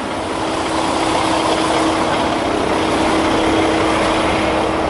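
Heavy truck engine idling steadily, a constant running noise with a steady hum.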